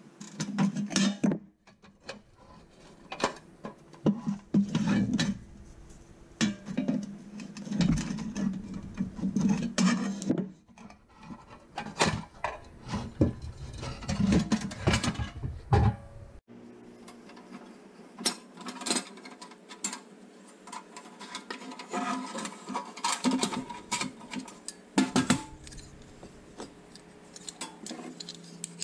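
Pressed-steel toy truck parts clinking, scraping and rattling as needle-nose pliers pry them apart, in irregular sharp clicks and knocks.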